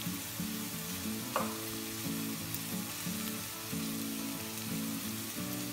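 Chopped onions and sliced green peppers sizzling in hot oil in a frying pan while being stirred with a wooden spoon, over soft background music.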